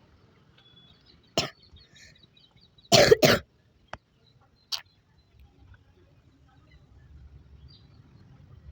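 Two short coughs in quick succession about three seconds in, with a few fainter single short sounds before and after.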